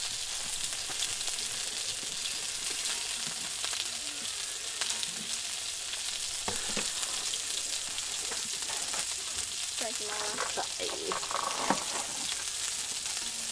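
Pork belly and asparagus rolls sizzling on a grill plate over a cassette gas stove: a steady frying hiss, with a sharp click near the end.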